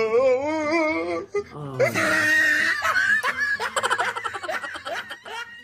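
A man laughing heartily, his voice wavering up and down in pitch, then breaking into a run of quick, pulsing laughs near the end.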